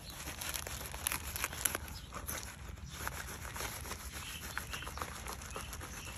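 Large kitchen knife slicing through ripe jackfruit, a run of small crackles and scrapes as the blade cuts the fibrous flesh and core.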